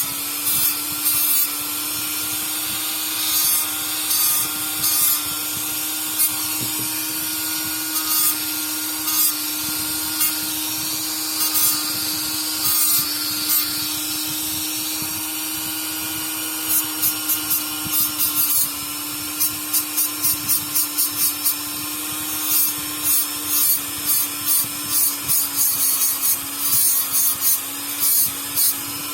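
Small handheld power sander running with a steady hum while its abrasive rubs over a shoe's toe in short strokes, which come quicker, about two or three a second, in the second half.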